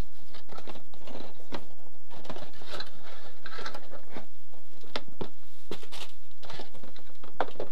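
A paperboard box holding Leatherman Raptor medical shears being opened and handled by hand: a busy, irregular run of small scrapes, taps and rustles of packaging.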